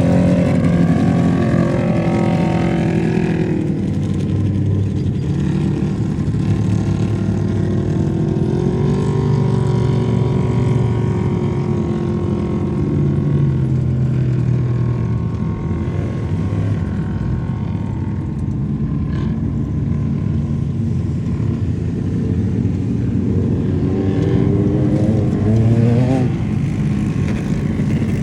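Off-road race vehicle engine running hard, its pitch wavering as the throttle changes and climbing sharply as it revs up a couple of seconds before the end.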